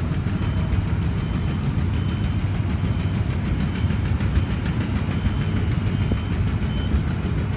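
Diesel engines of mobile cranes running steadily during a heavy lift, a dense low rumble. Faint, short, high-pitched tones come through now and then.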